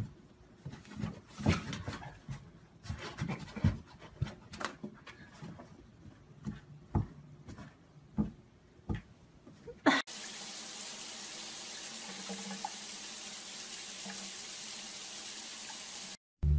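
Irregular light taps and knocks as a cat bats at a white toy poking up through a hole in a cardboard box. About ten seconds in this gives way to a steady hiss of water running into a bathtub, which stops shortly before the end.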